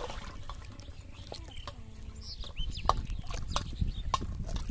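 Water splashing and dripping as a hooked catfish thrashes at the surface of shallow water, with scattered plinks and splashes that grow busier about halfway through.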